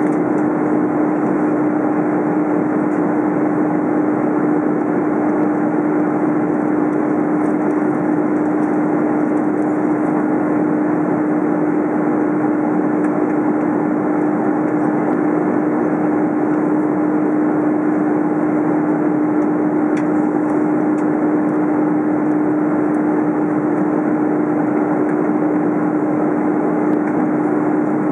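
Steady cabin noise of an Airbus A330 airliner in flight: the drone of its jet engines and the rush of air past the fuselage, with one constant hum running underneath.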